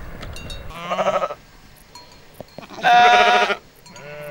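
Sheep bleating: two quavering bleats about two seconds apart, the second louder, then a fainter call near the end.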